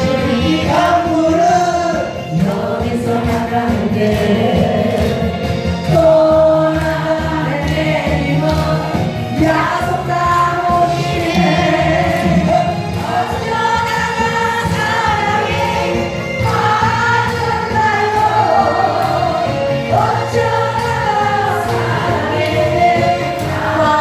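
Korean trot song sung over a backing track, with several voices singing together.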